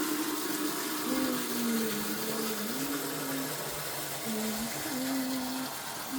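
Water running in a strong steady gush, as when a chicken drinker is being filled, with a low wavering tone rising and falling over it in short phrases.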